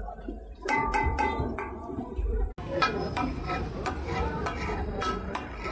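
Metal spatulas clanging and scraping on a flat iron griddle, katakat-style chopping and stirring, in quick repeated strikes with a metallic ring. It breaks off abruptly about two and a half seconds in, then resumes.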